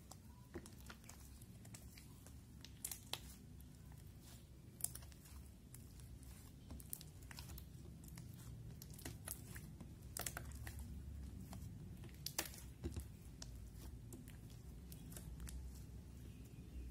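Clear slime being kneaded and stretched by hand against a glass plate, giving irregular small crackling pops and sticky clicks as it is pressed and pulled apart.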